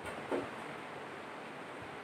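A single short knock of chalk against a chalkboard about a third of a second in, over a steady low hiss of room noise.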